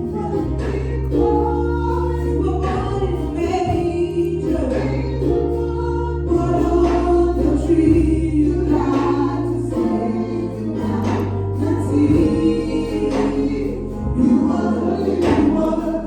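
Gospel music: a choir singing over long held bass notes.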